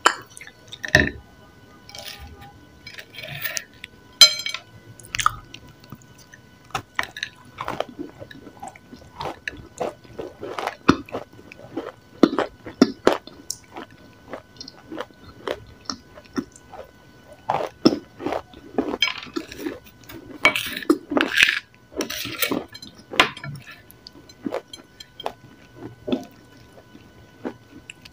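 Close-up chewing and biting of crumbly grey clay, with irregular crunches and soft squishy mouth sounds. A metal spoon scrapes and clinks now and then on the plate.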